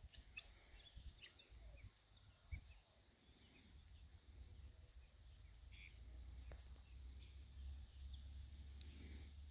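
Faint, scattered high chirps from helmeted guinea fowl keets foraging, mostly in the first few seconds, over a low steady rumble that builds after about three seconds.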